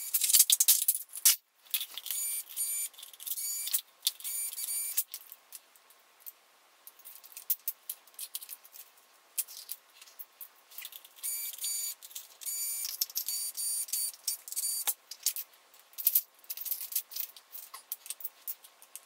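Sped-up disassembly noise, high-pitched and tinny: rapid clicking and rattling of plastic gearbox parts and screws being handled, broken by short bursts of a cordless screwdriver's pulsing whine.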